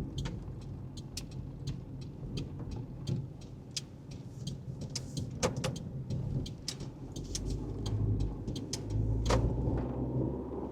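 Car driving on the road, heard from inside the cabin: a steady low engine and road rumble that swells somewhat near the end, with scattered light clicks and ticks throughout.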